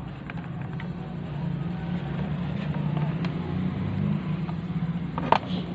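AC vacuum pump (rotary-vane type) running with its oil reservoir cover off, a steady motor hum on a test run after its internals were cleaned. A couple of sharp clicks near the end.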